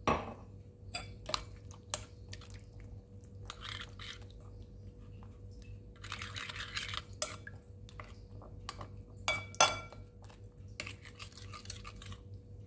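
Metal spoon stirring a thin, watery sauce in a ceramic bowl: scattered clinks of the spoon against the bowl and the swish of liquid, with one louder ringing clink about two-thirds of the way through. A faint steady hum runs underneath.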